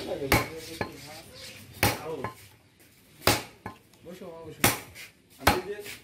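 Butcher's knife chopping goat meat on a wooden log chopping block: about six sharp, irregularly spaced chops, with faint voices between them.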